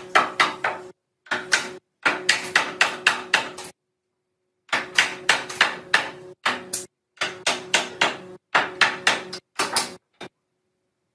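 Rapid hammer blows on wood, about five a second, in short runs broken by sudden dead silences, as curved mulberry-wood arch pieces are tapped into a door frame's joints. The striking stops about ten seconds in.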